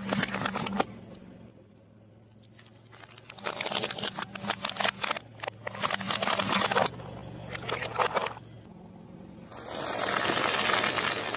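Car tyre rolling slowly over objects and crushing them: bursts of crackling and crunching as a plastic toy and other things give way, then a steady hiss near the end, over a low engine hum.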